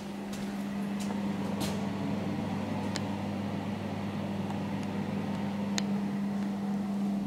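A steady low hum throughout, with a few light clicks and taps scattered through it.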